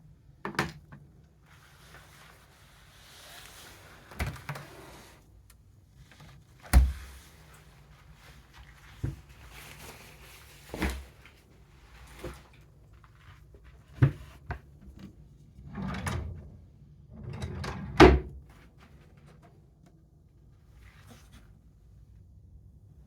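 Knocks and clunks of doors or drawers in a small hotel room being opened and shut, about ten separate strikes with rustling between, the loudest about seven and eighteen seconds in.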